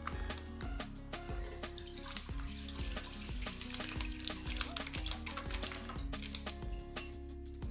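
Fresh milk poured from a packet into a cooking pot, a steady splashing hiss from about two seconds in until near the end, over background music with a beat.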